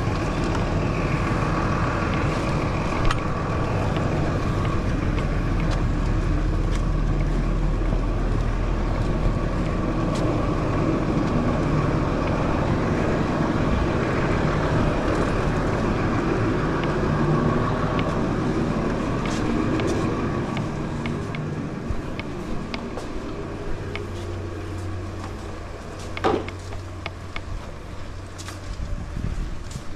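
A motor vehicle running with a steady rumbling drone that dies down about two-thirds of the way through, leaving a low hum and scattered clicks and knocks.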